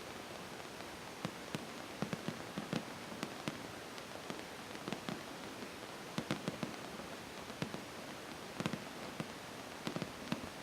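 Fireworks exploding: a rapid, irregular series of sharp bangs and cracks, some in quick clusters, over a steady hiss.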